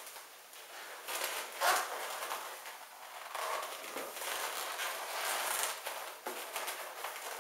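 Inflated latex modelling balloon rubbing and squeaking under the hands as it is bent and twisted into a four-finger loop, with one sharper squeak about a second and a half in.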